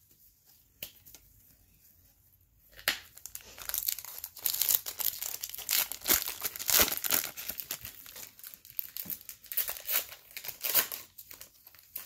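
Foil wrapper of a Topps Chrome trading-card pack being torn open and crinkled by hand. A dense run of crackling starts about three seconds in and eases off shortly before the end.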